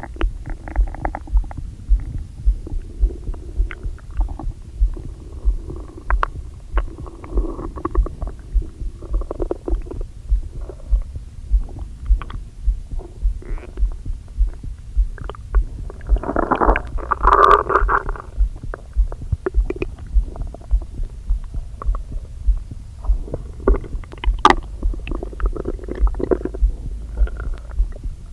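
Human stomach and intestines gurgling and rumbling, close-miked, in irregular bubbly gurgles with one longer, louder gurgle about two-thirds of the way in. A steady low pulsing thud runs underneath. It is an upset gut after a meal, which the owner puts down to eating too much too quickly after a long time without food.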